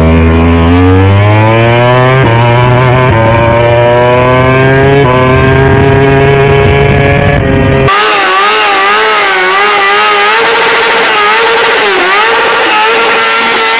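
Yamaha MotoGP racing motorcycle engine accelerating hard, its pitch climbing and dropping back at each of several upshifts. About eight seconds in, a sudden cut to a Yamaha R1 sportbike held at high revs in a burnout, its engine note wavering up and down.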